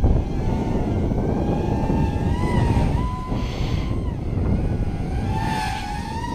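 Small 3S quadcopter's 1306 brushless motors and propellers whining, the pitch gliding up and down as the throttle changes, over a heavy rumble of wind on the microphone.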